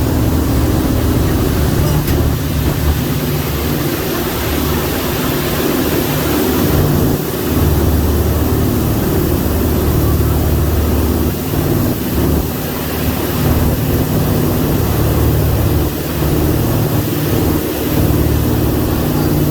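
Heavy marine diesel engines of a Thames Uber Boat river catamaran running steadily, a loud low drone with a slightly wavering level.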